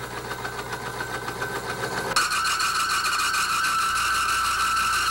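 Timken extreme pressure test machine running with the steel test bearing pressed against its rotating race in motor oil. A fast rattling chatter grows louder, then about two seconds in a steady high-pitched metal-on-metal squeal sets in, the sign of the oil film failing and the bearing surfaces scoring under the load.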